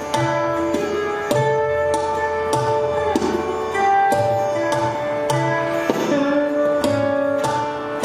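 Mohan veena, a lap-held slide guitar of Hindustani classical music, playing a plucked melody of held notes, with tabla accompaniment whose deep bass-drum strokes recur beneath it.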